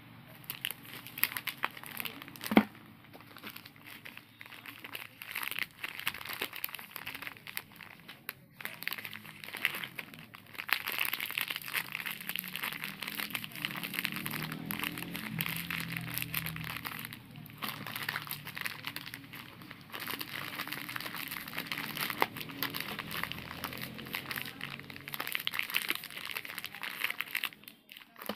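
Shiny plastic biscuit wrappers crinkling as they are turned over and squeezed in the hand: a long run of continuous crackling, with a sharp louder crackle about two and a half seconds in.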